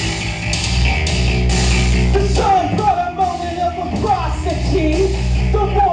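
Loud punk-rock hip-hop backing track played live through a PA, with heavy bass and drums. About two and a half seconds in, the bass briefly drops out and a wavering melodic line comes in.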